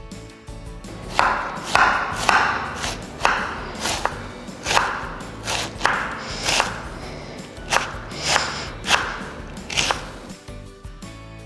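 Chef's knife shredding a crisp cabbage wedge on a wooden cutting board: about a dozen separate crunching cuts, one or two a second, each ending in a knock of the blade on the board. Background music plays underneath.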